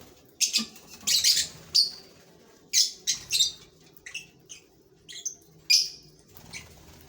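Lovebirds in a colony giving short, shrill chirps and squawks, about a dozen separate calls in irregular succession.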